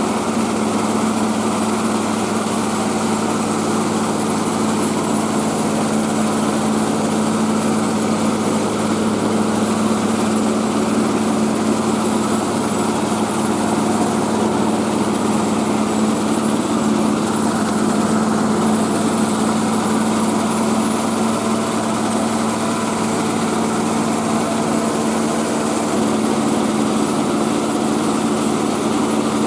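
Mobile rice-milling machine running steadily, its engine and milling works holding one constant pitch without change.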